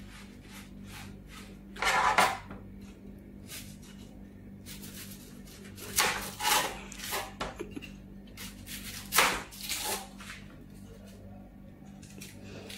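Kitchen knife cutting and scraping on a plastic cutting board: short, irregular strokes and a few longer scrapes while an onion is trimmed and peeled, over a steady low hum.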